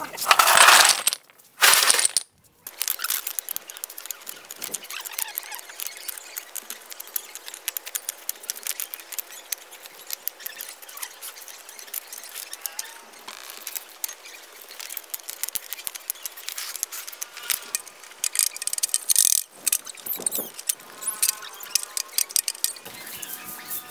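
Hollow clay bricks clattering loudly as a barrow-load is tipped out at the start, then clinking and knocking again and again as bricks are set down one by one, over a steady splash of water running into the tank.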